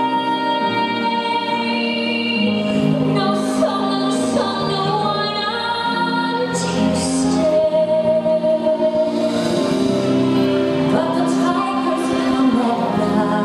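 Recorded music with a woman singing long, held notes, heard in a large sports hall.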